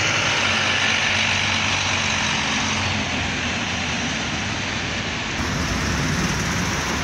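Steady city street traffic: road vehicles such as buses running past, with a low engine hum.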